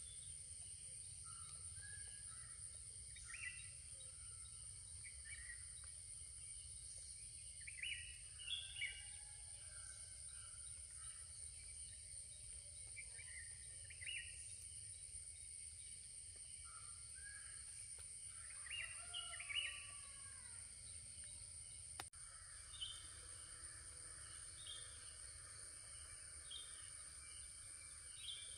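Faint morning countryside ambience: a steady high-pitched insect drone under scattered short bird calls. After a click about two thirds of the way through, one bird repeats a short call roughly every second or so.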